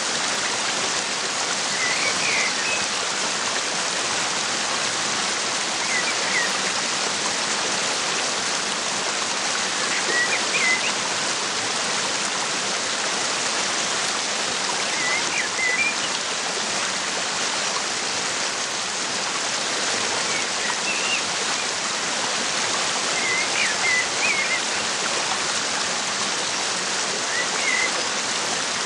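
Waterfall rushing steadily, with short bird chirps every few seconds.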